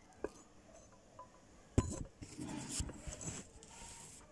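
Small hard objects knocked and clinking as they are handled: a sharp knock a little under two seconds in, then about a second of rustling and light clinking.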